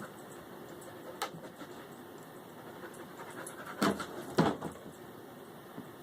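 A dog working to get its toy out of a laundry basket: a short click about a second in, then two loud short sounds half a second apart about four seconds in.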